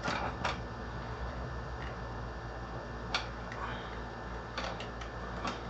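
Scattered light clicks and taps, about six in all, from handling a Seagate hard disk drive as it is taken out, over a faint steady low hum.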